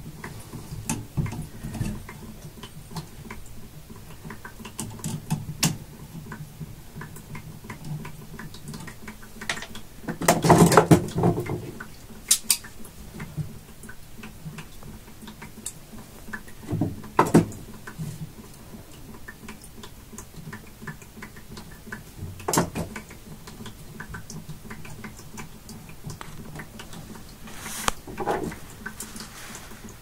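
Small clicks, taps and scrapes of hand tools and wires being worked at a well pressure switch's terminals, with a few louder metal clatters, the loudest about ten seconds in. A low steady hum runs beneath.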